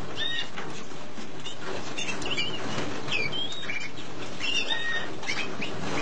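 A flock of canaries chattering together in an aviary, with many short chirps rising and falling over a constant dense twittering and the flutter of wings.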